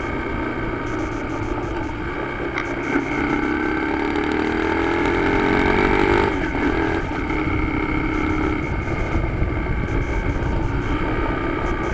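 Motorcycle engine under way with steady road and wind noise. About three seconds in the engine note starts climbing steadily as the bike accelerates, then drops off sharply a few seconds later.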